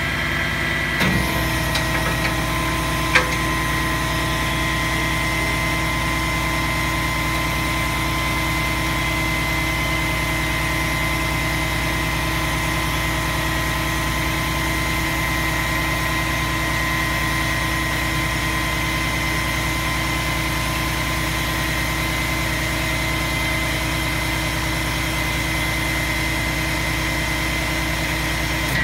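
Skip loader truck's diesel engine idling steadily, with a steady high tone running over the engine sound. There is a brief change in the sound about a second in and a single sharp click about three seconds in.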